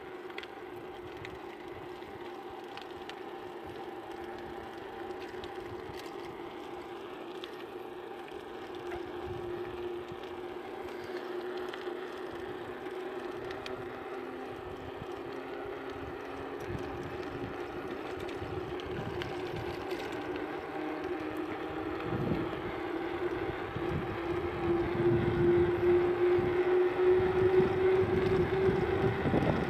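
Mountain bike coasting downhill and giving off an engine-like drone that slowly rises in pitch and grows louder as it gains speed. Wind buffets the microphone in the last several seconds.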